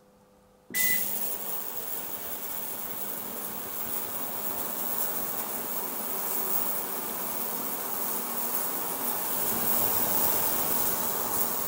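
Vevor digital ultrasonic cleaner switching on with a short beep about a second in, then running steadily: a hissing buzz from the cavitating cleaning bath with a hubcap in it.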